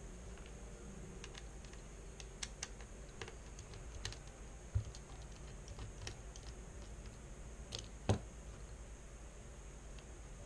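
Light, scattered clicks and taps of a precision screwdriver working the small screws that hold the VRM heatsink to a graphics card's circuit board. A dull knock comes about five seconds in, and the loudest click about eight seconds in.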